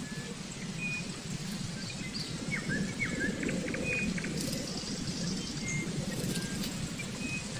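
Small birds chirping in short high calls, with a quick run of several chirps about two and a half seconds in, over steady low background noise.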